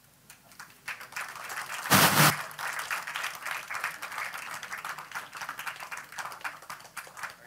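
Audience applauding, many hands clapping, with a brief loud thump about two seconds in.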